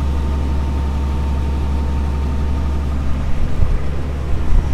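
Heavy farm-vehicle engine running steadily with a low drone, with a few low bumps near the end.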